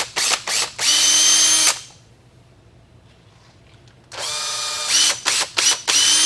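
Makita 18-volt cordless drill boring pilot holes into a solid plastic speaker adapter: a few quick trigger pulses and then a steady whine for about a second, a pause of about two seconds, then another run of pulses and a steady whine near the end.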